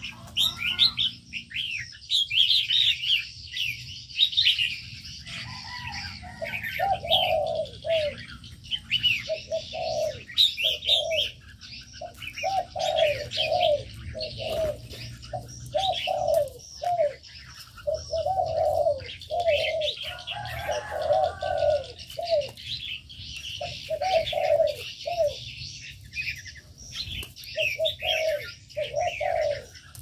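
Spotted doves cooing, short coo phrases repeated over and over from about six seconds in, with a few brief pauses. Throughout, a constant busy chirping of small aviary birds runs above the coos.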